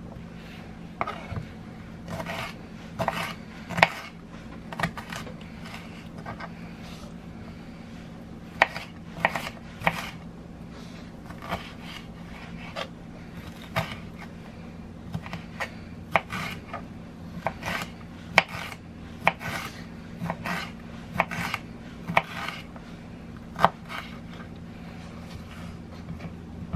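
Knife cutting vegetables on a cutting board: irregular sharp chops mixed with slicing strokes. A steady low hum runs underneath.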